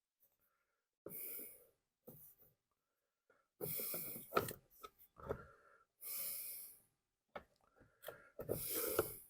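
A man breathing near the microphone, four soft breaths about two and a half seconds apart, while faint clicks of plastic parts being handled come between them.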